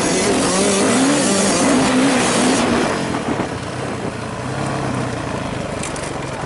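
Yamaha YZ450F four-stroke motocross engine heard from on board, its revs rising and falling over the first couple of seconds, then easing to a lower, steadier run, with a rush of wind noise over the microphone.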